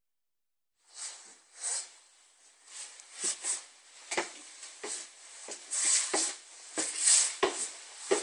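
Footsteps climbing wooden stairs, a knock about every two-thirds of a second, mixed with hissing bursts of noise that are sometimes louder than the steps.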